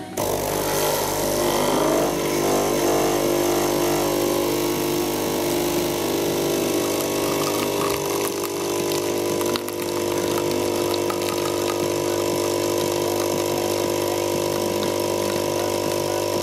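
Capsule espresso machine's vibratory pump buzzing steadily as it brews into a cup. The buzz switches on suddenly and wavers for the first few seconds before settling.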